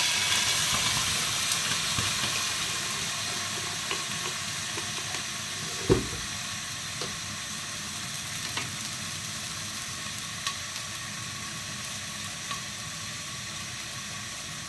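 Onions frying in oil in a pot covered with a glass lid, sizzling after a splash of water was added. The sizzle fades over the first several seconds, with a few small pops and one sharper pop about six seconds in.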